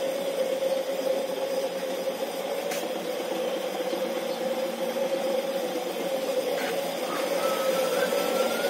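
Machinery in an old corn-shelling setup running with a steady, even hum, with no crunch of cobs being fed.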